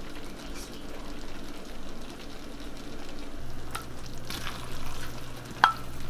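Shrimp fried rice sizzling in a ceramic non-stick wok as it is stirred, with a few clinks of the utensil against the pan; the sharpest comes about five and a half seconds in.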